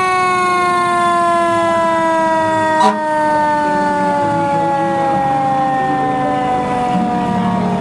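Fire truck siren sliding slowly and steadily down in pitch, winding down after a quick rise, with a short sharp click about three seconds in.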